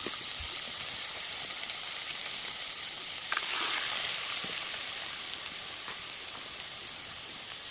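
Food frying in a hot pan, with a loud, steady sizzle that cuts off suddenly at the end.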